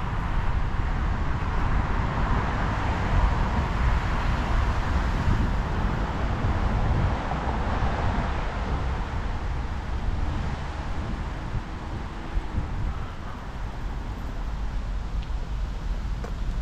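Street traffic noise: vehicles passing, swelling twice, over a steady low rumble that sounds like wind on the microphone.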